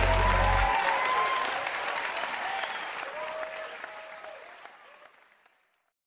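Church congregation applauding, with some voices calling out. The deep bass of the accompaniment stops under a second in, and the applause fades out near the end.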